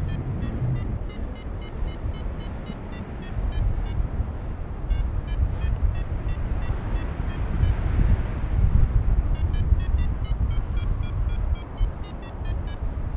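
Wind rushing over the microphone in flight on a paraglider, strongest about two-thirds through. Over it, a flight variometer gives rapid short beeps in the first few seconds and again near the end, its signal that the glider is climbing in rising air.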